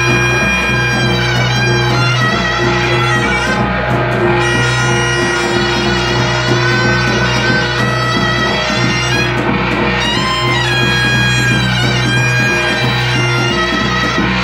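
Korean shaman ritual (gut) music: a reedy wind instrument plays a bending melody over steady drumming and cymbals, without a break.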